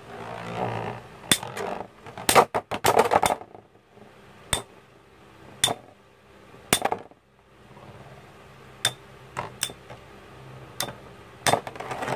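Two Infinity Nado spinning tops battling in a plastic stadium: a whirr of spinning near the start, then sharp metallic clacks as the tops collide, a quick flurry of hits about two to three seconds in and single knocks every second or so after that.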